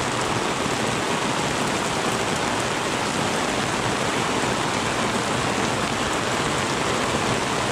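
Heavy thunderstorm rain pouring down, a steady dense hiss.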